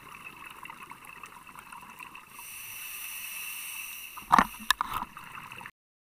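Underwater sound on a reef dive: a steady hiss with faint crackling, joined about two seconds in by a brighter, higher hiss. A little past four seconds come a few loud sharp knocks, then the sound cuts off abruptly.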